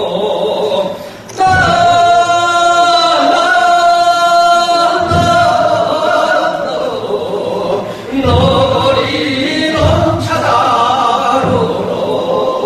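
Men singing in Korean traditional sori style, drawing out long held notes, with a few low thumps underneath.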